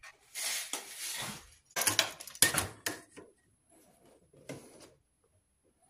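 Steel tape measure and wooden bow stave being handled on a workbench: a few rustling scrapes and sharp clacks over the first three seconds, then fainter rattles.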